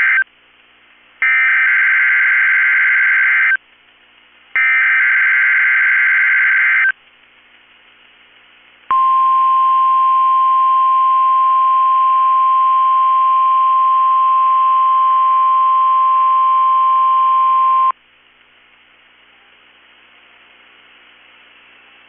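NOAA Weather Radio Emergency Alert System signalling for a Required Weekly Test. The tail of one SAME digital header burst is followed by two more buzzy data bursts of about two seconds each, with short gaps of faint hiss. After a pause comes the steady 1050 Hz warning alarm tone, held for about nine seconds, then cut off to faint hiss.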